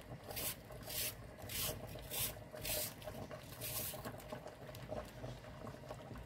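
Cut onion wedges dropped by hand into a stainless steel pot of spiced meat, making about six short, soft patters over the first four seconds.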